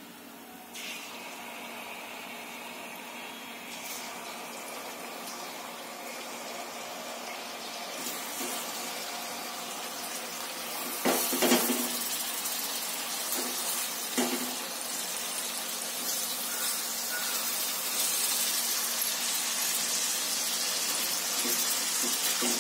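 Hot oil sizzling as boiled bitter gourds fry in a steel pot, the sizzle growing steadily louder as more gourds go in. A few sharp knocks about halfway through, from gourds or a spoon hitting the pot.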